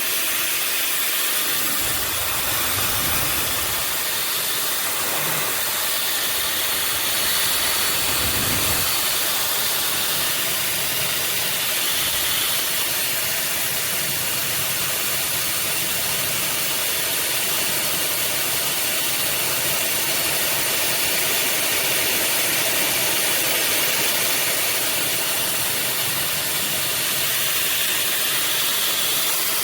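OSOU 1200 W high-speed hair dryer running steadily: a loud, even rush of blown air.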